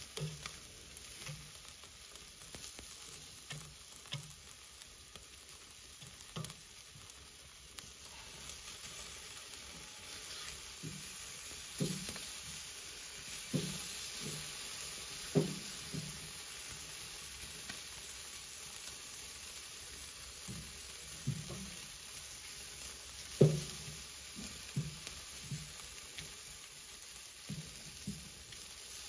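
Chicken drumsticks sizzling on a charcoal grill with a steady hiss. Metal tongs clink and knock against the grill grate a dozen or so times as the pieces are turned and moved, most of them in the second half, and the loudest knock comes a little past the middle.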